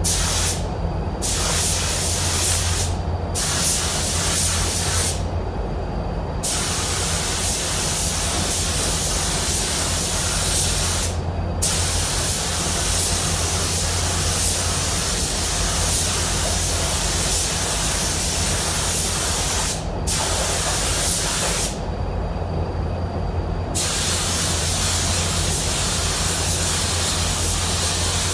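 Compressed-air paint spray gun hissing in long passes while the trigger is held, with short breaks where it is let off, the longest about five seconds in and about twenty-two seconds in. A steady low hum runs underneath.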